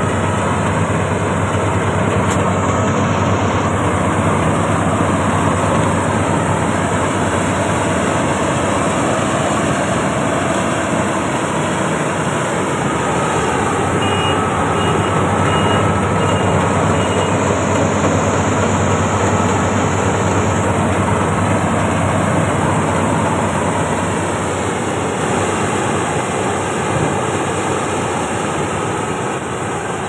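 Marksan K-BOS MS-1200 crawler combine harvester running steadily under load while harvesting wheat: a continuous dense drone of engine and machinery, getting a little quieter near the end.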